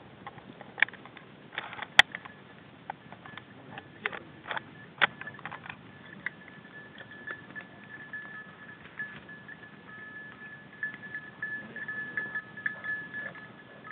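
Dry stalks crackling and snapping underfoot as someone walks through trampled cover, with one sharp click about two seconds in. From about six seconds a high, steady beeping tone sounds, pulsing brighter at times and joined partway through by a second, lower tone.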